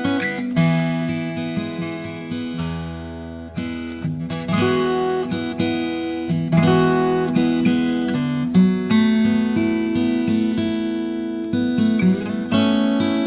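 Instrumental background music: acoustic guitar playing plucked notes and strummed chords at a steady pace.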